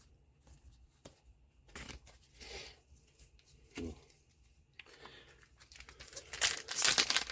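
Trading card booster pack wrapper being crinkled and torn open: a few short rustles, then a louder stretch of tearing near the end.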